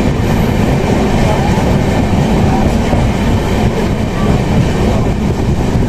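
Passenger train running along the track, heard from on board: a steady, loud running noise of wheels and carriage.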